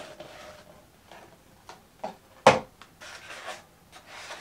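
Cardboard lens packaging being handled: the inner box slid out of its sleeve and a moulded pulp-paper insert lifted out, with light rustling and scattered taps. The loudest is a single sharp knock about two and a half seconds in.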